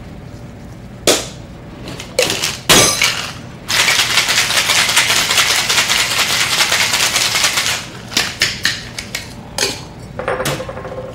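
Ice rattling hard in a metal two-tin cocktail shaker as a mojito is shaken, for about four seconds. Before it come a few sharp knocks, and after it a run of clinks and knocks as the shaker is handled and opened.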